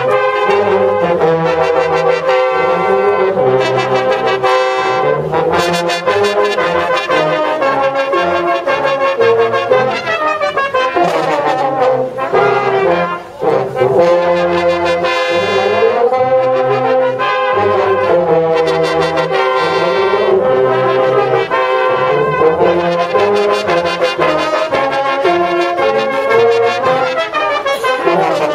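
A brass band of cornets, euphonium and tubas playing a piece together, with a steady bass line under the melody and a momentary break in the sound about halfway through.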